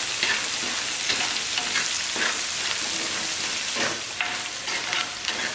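Dried red chillies, small onions and crushed garlic sizzling in groundnut oil in an earthen clay pot, with a metal spoon scraping through them in repeated stirring strokes.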